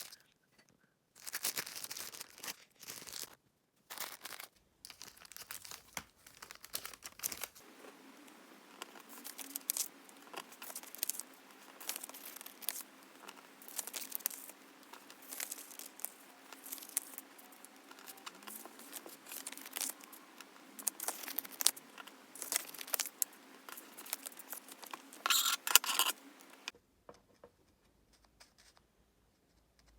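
Plastic packaging and card sleeves being handled: irregular crinkling and rustling with sharp tearing and peeling sounds, stopping shortly before the end. A faint steady hum lies underneath.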